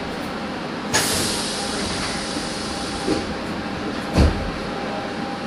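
Nagoya Municipal Subway 2000-series train at the platform just before departure, over the car's steady hum: a sudden sharp hiss about a second in, then a short heavy thump about four seconds in, the sounds of the doors closing as the train gets ready to move off.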